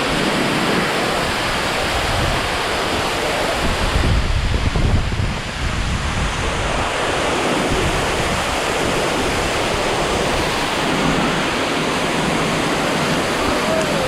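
Steady, loud rush of a large waterfall's falling water, with wind buffeting the microphone in a stronger low rumble about four to six seconds in.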